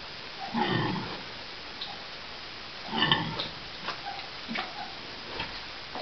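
A nursing sow grunting twice, about half a second and three seconds in, with faint short clicks between the grunts.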